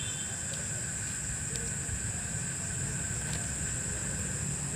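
Night insects calling in a steady, unbroken high-pitched chorus over a low rumble, with a few faint clicks.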